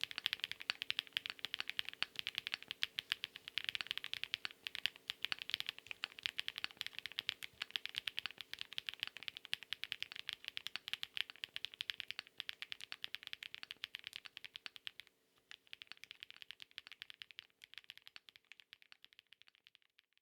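Continuous fast typing on a Chilkey PAW65 mechanical keyboard with stock Huano Cherry Blossoms linear switches and PBT keycaps, a dense run of light clacky keystrokes. It pauses briefly about 15 seconds in, then resumes more sparsely and fades toward the end.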